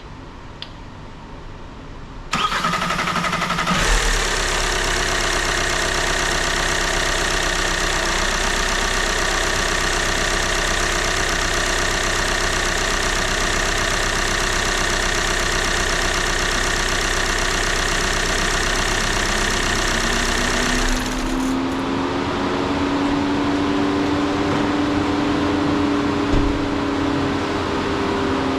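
Volkswagen EA189 2.0 TDI four-cylinder diesel cranking on the starter about two seconds in, catching a second or so later and then running steadily: the first start after a timing-belt repair. About 21 seconds in the running sound changes and a slowly rising, then falling tone takes over.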